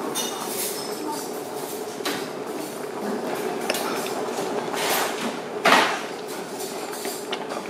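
Metal ladle knocking and scraping against a stew pot and a small bowl as seafood is served, with a few light clinks and the loudest clack about six seconds in. A steady murmur of background voices runs underneath.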